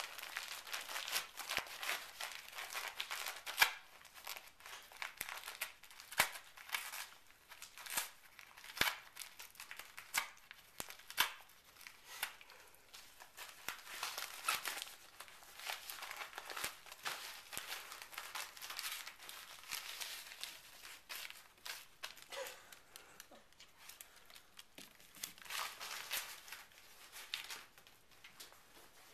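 Wrapping paper crinkling and tearing as a dachshund rips at a present with its mouth and paws, in irregular crackles and sharp snaps. The rustling thins out near the end as the dog leaves the paper.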